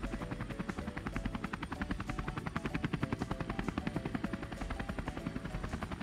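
Helicopter sound effect: a rapid, even rotor chop that runs steadily, standing in for the toy helicopter in flight.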